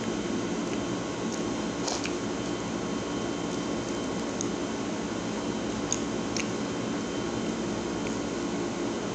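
A few soft clicks and scrapes of a fork in a plastic cup of chocolate waffle pieces, with quiet eating sounds, over a steady background hum and hiss.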